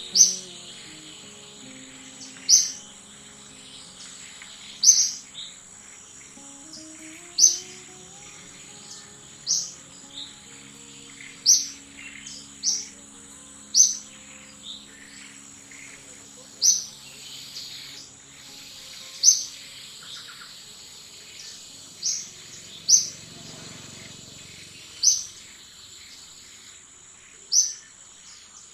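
Short, high-pitched chirping calls repeating about every two to three seconds, over a steady high-pitched whine like insects.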